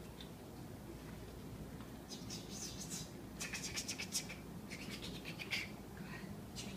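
Children taking turns making the same short hissing, scratchy sound, one after another, four times a little over a second apart.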